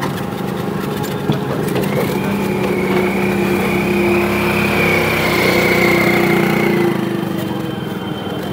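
Ride in a three-wheeled rickshaw: its motor runs steadily along with road noise. A higher whine comes in about two seconds in and fades out near seven seconds.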